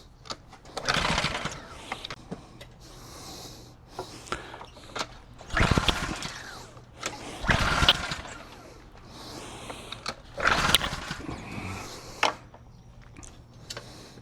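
Briggs & Stratton 163cc pressure-washer engine being pull-started four times by its recoil starter, cranking briefly each time without firing. The owner traces the no-start to the unit's on/off switch having been left off.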